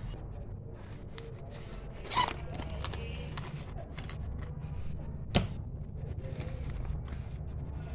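Stationery being handled in a zippered fabric pencil pouch: rustling and light knocks of pens, scissors and a glue stick, with one sharp tap about five seconds in, over a steady low hum.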